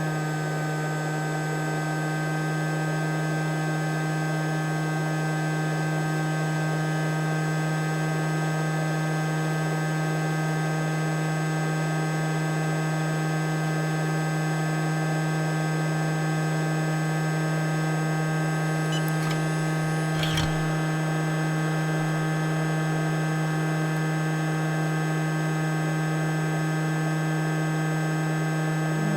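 Steady electric hum from bench equipment running at a constant pitch, with one brief click about two-thirds of the way through.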